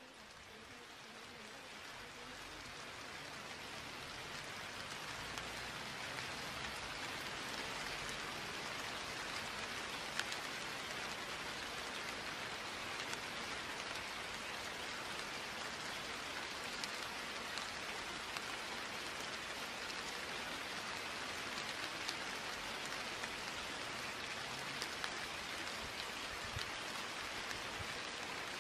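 Steady rain sound, fading in over the first few seconds and then holding even, with a few faint scattered drop ticks.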